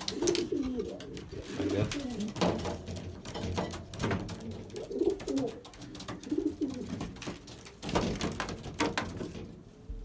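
Racing pigeons cooing, repeated wavering low calls, with a few sharp clicks and knocks from the loft's fittings being handled.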